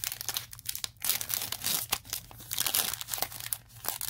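Foil wrapper of a Yu-Gi-Oh booster pack crinkling and tearing as it is pulled open by hand, in irregular crackly bursts.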